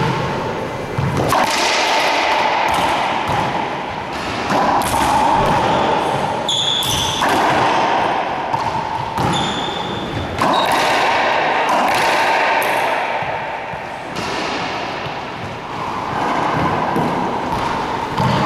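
A racquetball doubles rally: the ball cracking off racquets and the court walls, each hit echoing around the enclosed court. Twice a brief high squeak, sneakers on the hardwood floor.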